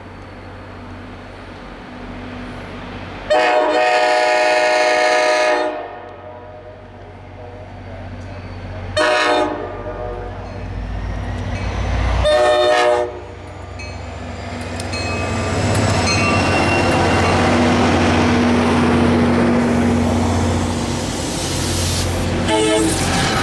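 Train horn sounding three blasts: a long one a few seconds in, a short one, then a slightly longer one. After that the train comes closer and passes, its rumble and wheel noise building and staying loud.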